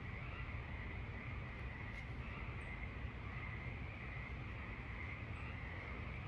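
Quiet night-time outdoor ambience: a steady, slightly wavering high-pitched drone over a faint low rumble, with a few tiny ticks.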